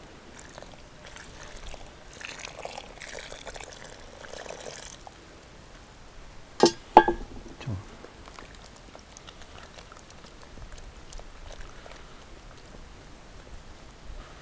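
Lukewarm water poured into an iron bowl of flour and charcoal, splashing softly for the first few seconds. About seven seconds in come two sharp, ringing knocks, then faint clicks and rubbing as the dough is mixed by hand in the bowl.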